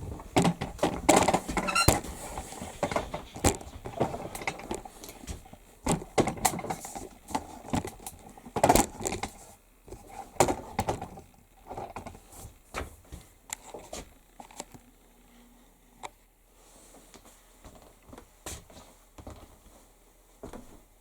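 Irregular clinks, knocks and rattles of metal hardware and tools being handled on a workbench. The sounds are busiest in the first half, with a few sharper knocks around nine and ten seconds in, then thin out to scattered light ticks.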